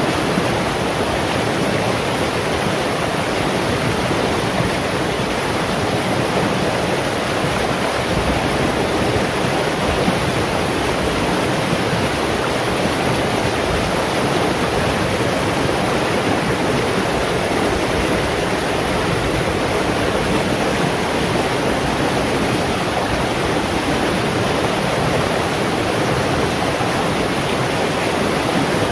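Shallow rocky stream rushing and splashing over boulders and stones in a steady, unbroken flow.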